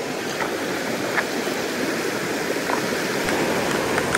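Small mountain stream rushing over rocks in a white-water riffle: a steady wash of water noise, with a few faint clicks scattered through it.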